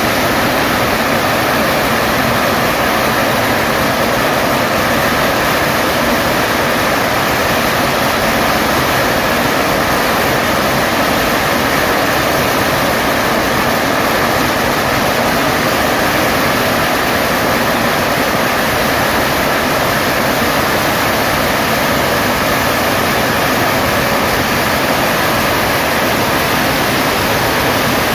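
Electronic firecracker machine sounding a continuous, dense firecracker crackle, loud and steady with no break.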